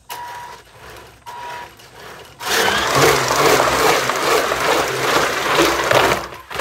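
Small twin brushed-motor RC truck: its motors give short whining blips, then about two and a half seconds in it goes to full throttle for roughly four seconds. The loud, hissing rumble of the motors and tyres on the corrugated walls of a culvert pipe, echoing in the pipe, comes as it runs a full loop around the inside. The noise drops off near the end.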